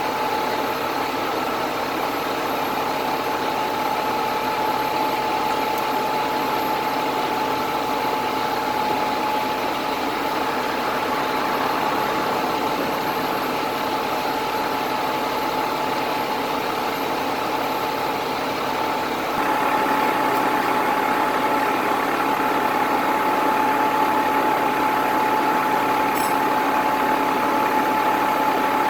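A large engine running steadily with a steady whine on top. It gets a little louder about two-thirds of the way in.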